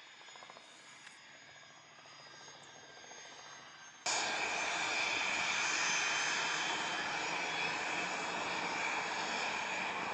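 Faint jet engine noise, then a sudden jump about four seconds in to the loud, steady whine and rush of a Cessna Citation Excel business jet's twin turbofan engines as it taxis close by.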